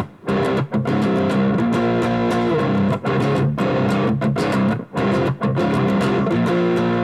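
Overdriven electric guitar with a crunch tone from a Stratocaster-style guitar's neck and middle single-coil pickups in parallel. It plays a riff of picked chords and notes, each attack ringing on, with short breaks between phrases.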